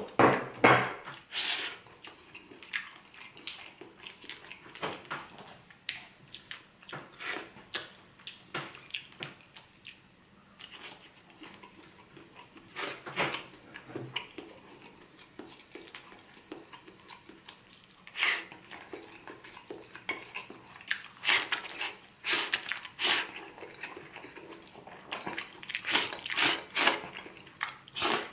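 Close-up eating sounds of seafood paella being chewed: irregular wet clicks and smacks from the mouth, loudest in clusters about a second in, around the middle and near the end, with an occasional clink of a plate.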